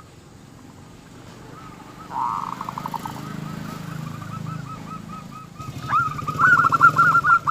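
Zebra doves (perkutut) singing: rapid series of short, hooked cooing notes. They are faint at first, louder about two seconds in, and loudest in a quick run of notes from about six seconds in. A low engine hum runs beneath them.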